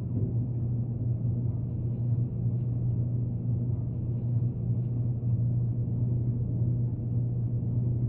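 A steady low hum, even and unbroken, sitting deep in pitch with a dull, muffled top.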